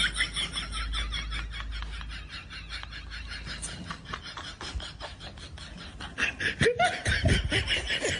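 A person laughing in quick, breathy bursts, growing louder and fuller about two-thirds of the way in.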